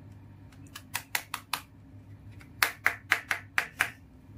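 Hard plastic clicking as a pink toy doctor-kit piece is handled and fitted together: a quick run of about four clicks, then a second run of about seven.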